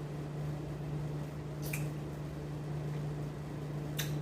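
A steady low hum, like a running room appliance, with two short clicks about two seconds apart.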